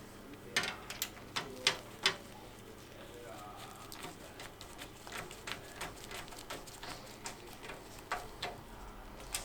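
Clicks and light taps of hard parts being handled during PC assembly, a quick cluster of sharper clicks in the first two seconds and softer scattered ticks after.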